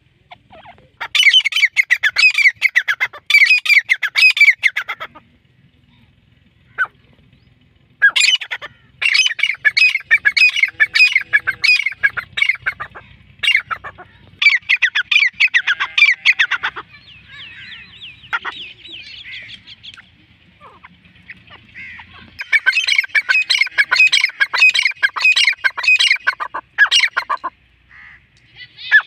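White female francolin (teetar) calling in four long bouts of rapid, harsh, repeated notes, with short pauses between bouts.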